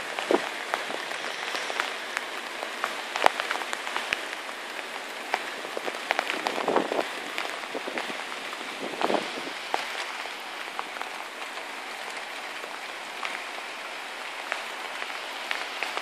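Steady rain falling, with frequent sharp ticks of drops landing close by.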